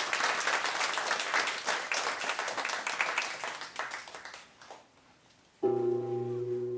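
Audience applause that fades away over about four seconds. After a moment of quiet, a steady ringing tone with several held pitches starts suddenly near the end: the opening of the dance accompaniment.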